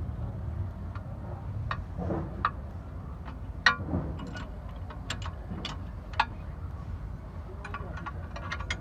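Irregular metallic clicks and clinks of hand tools working on car suspension parts, the sharpest a little under four seconds in and a quick run of them near the end, over a steady low rumble.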